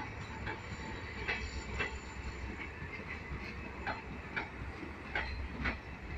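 Passenger coaches of an express train rolling past at low speed. A steady low rumble runs under it, with a few irregular sharp clacks as the wheels cross rail joints.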